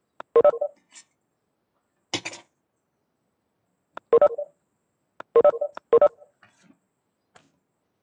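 Short electronic beeps in quick clusters of two or three, with a pause of a second or more between clusters, and a brief noisy rustle about two seconds in.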